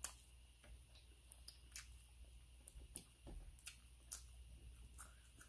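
Near silence with faint, scattered clicks and soft wet sounds of eating by hand: fufu being pinched off and scooped through okra soup, with some chewing.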